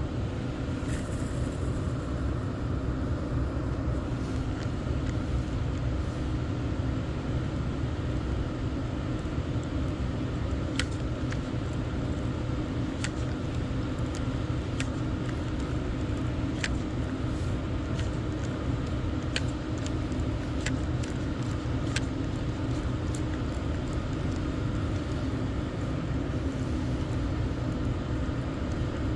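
Steady low rumble of road traffic with a constant hum, and a scattering of single sharp clicks through the middle.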